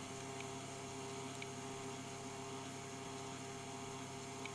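Steady electrical hum, several evenly spaced tones held without change, with a faint hiss over it.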